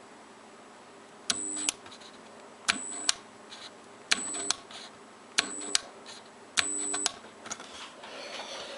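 US-210A manicure/pedicure machine switched on and off five times in a row. Each time a click is followed by a short steady hum with a high whine, then a click as it cuts off, without the motor spinning up. This is the fault of a unit that hums but won't start, which the owner suspects is in the handpiece motor.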